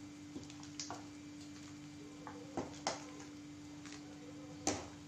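Metal ladle clinking against a pan and a steel bowl as sambar is ladled out: a few light clinks, the loudest near the end, over a steady low hum.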